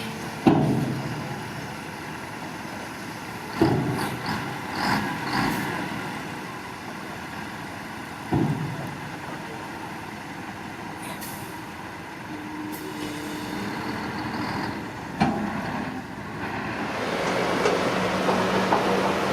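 Heavy earthmoving machinery running, with a few sharp knocks and clanks spread through. Near the end the engine grows louder and steadier, with a low hum.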